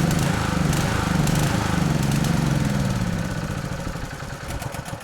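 Honda petrol generator engine running with a bad, unsteady idle, its pitch rising and falling. It gets quieter over the last two seconds. The owner cures this by loosening the fuel cap to let air into the tank.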